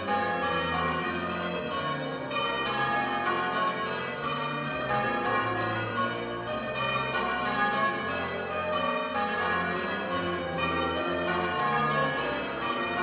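Church bells ringing continuously, many overlapping strikes with their tones ringing on.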